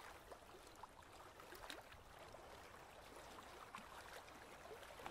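Near silence: faint water ambience with a few scattered light ticks.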